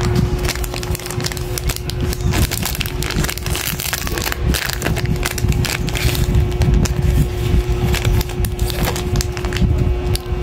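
Thin plastic packaging crinkling and crackling irregularly as hands handle a sleeve of dual-tip highlighter pens and slide the pens out of it.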